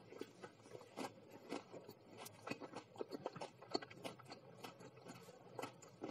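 A person chewing food close to the microphone: irregular soft clicks and wet smacks of the mouth, several a second.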